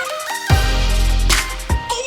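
Background electronic music with a heavy bass note and drum beats.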